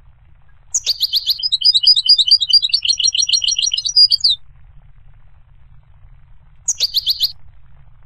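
European goldfinch singing: a phrase of about three and a half seconds opens with quick sharp notes and runs into a fast, tinkling trill that ends in a falling slur. A short burst of quick notes follows near the end.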